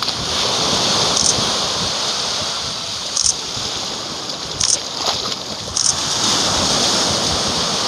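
Ocean surf breaking and washing up the beach in a steady rush, with several short high-pitched chirps spaced a second or two apart.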